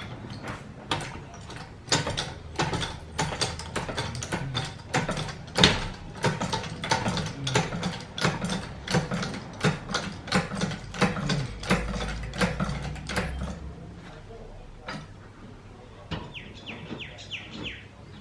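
Mechanical clicking from tool work on a car's rear suspension: sharp metallic clicks, two or three a second, for most of the stretch, then a short run of faster, lighter ticks near the end.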